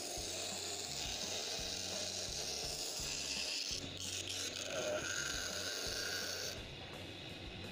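Dental lab lathe spinning a grinding stone against a pink acrylic denture base plate: a steady motor hum under the grinding of the stone as it trims excess acrylic to finish the plate. The grinding lightens near the end.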